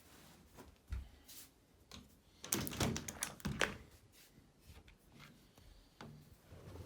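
A few sharp knocks and thuds, with a quick clatter of them from about two and a half to three and a half seconds in.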